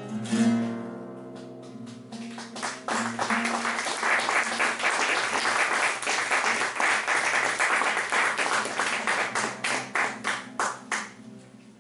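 Classical guitar playing: a few plucked notes ring out, then about two and a half seconds in it breaks into a long passage of fast, hard strumming that stops suddenly near the end.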